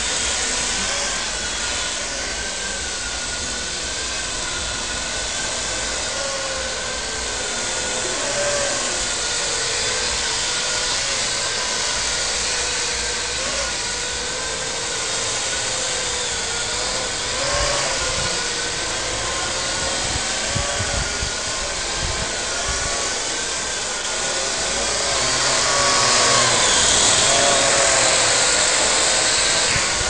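Parrot AR.Drone quadcopter in flight close by: the steady buzzing whine of its four electric motors and propellers, its pitch wavering up and down as it manoeuvres, growing louder for a few seconds near the end.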